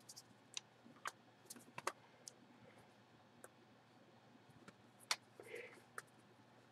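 Faint scattered light clicks and paper rustles of a manila clasp envelope being handled with gloved hands.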